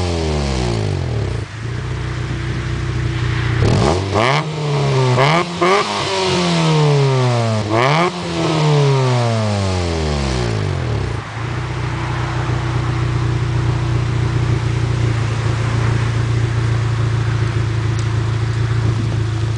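Car engine through a new aftermarket twin-tip exhaust, being revved while parked: the revs fall away at the start, three quick throttle blips follow a few seconds in, each dropping back slowly, and then it settles into a steady idle from about halfway.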